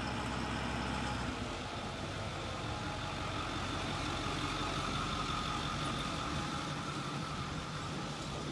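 Ford Super Duty pickup truck's engine idling steadily while hitched to a loaded stock trailer.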